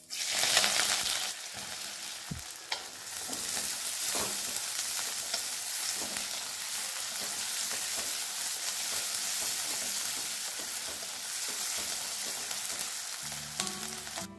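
Sliced onions hitting hot oil in a hammered metal kadai and sizzling, loudest just as they go in, then frying steadily as they are stirred with a wooden spatula, with a few sharp clicks from the stirring.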